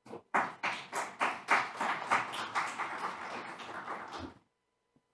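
Applause from a small live audience: a couple of first claps, then about four seconds of clapping that fades a little and stops.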